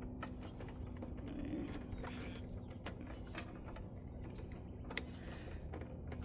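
Parts of a UV sterilizer unit being handled as its top washer and bulb are taken out: a few light, scattered clicks over a steady low hum.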